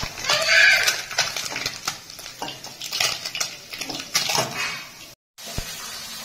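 Metal spatula scraping and clinking against a metal kadai as fried small fish are scooped out of hot oil, in irregular knocks and scrapes. A brief high squeal sounds about half a second in.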